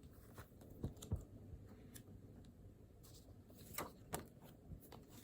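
A few scattered light clicks and knocks over a quiet room background, like small objects handled on a desk, the sharpest about a second in and again near four seconds.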